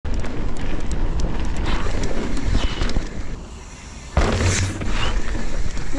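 Mountain bike riding over rough trail, wind buffeting the microphone and small rattles and clicks from the bike, which goes quieter about three seconds in, then a sudden heavy thud about four seconds in as the bike comes down hard.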